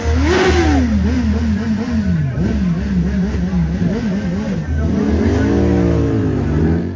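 Motorcycle engine revved hard over and over during a smoky rear-tyre burnout. Its pitch climbs and drops about twice a second, then rises in a few longer sweeps near the end.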